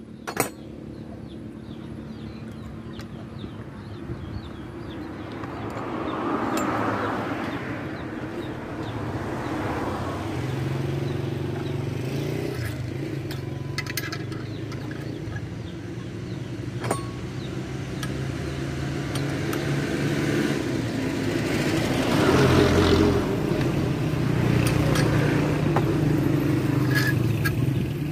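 A motor vehicle engine running steadily, swelling louder twice, about a quarter of the way in and again near three-quarters. A sharp tap comes just after the start and another a little past halfway.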